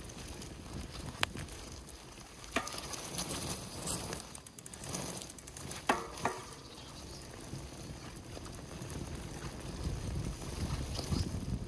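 Mountain bike being ridden over rough ground: a steady low rumble of tyres and wind with a handful of sharp clicks and knocks from the bike.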